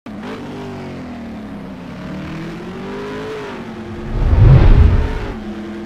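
Car engine sound effect: an engine held at steady revs with its pitch drifting slightly, then a loud deep rush about four seconds in, like a car sweeping past, before it settles back to a steady note.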